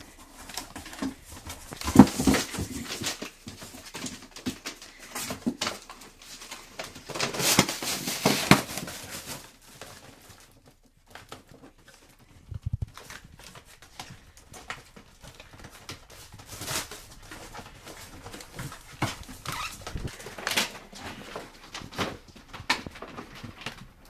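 Miniature pinschers rummaging in a cardboard box of packaged dog food: crinkling plastic wrap and paper with scuffs and knocks against the cardboard. It comes in irregular bursts, loudest about two seconds in and from about seven to nine seconds, with a quieter lull after.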